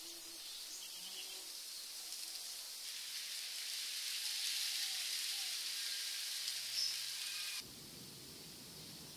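Outdoor nature ambience: a steady high hiss that grows louder about three seconds in, with a brief high chirp near seven seconds. The hiss cuts off abruptly near the end, giving way to a duller, lower background.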